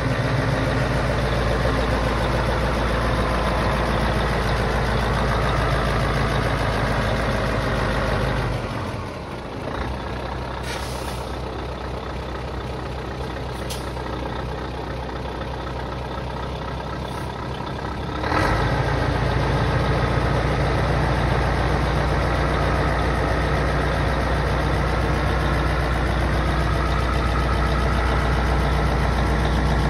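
Scania R143 tipper truck's V8 diesel engine running steadily. About eight seconds in it turns fainter for roughly ten seconds, with a few faint clicks, then comes back louder and steady while the tipper body is raised hydraulically.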